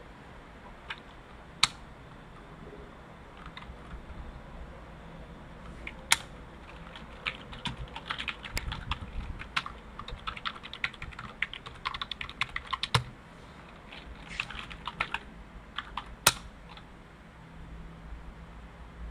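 Computer keyboard typing: two quick runs of keystrokes, with a few louder single clicks before, between and after them.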